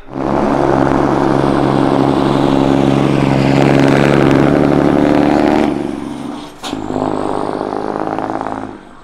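Scania S500 truck and trailer's diesel engine running steadily as it drives past at low speed, then fading as it pulls away. A sharp click about six and a half seconds in, after which the engine sound carries on more quietly.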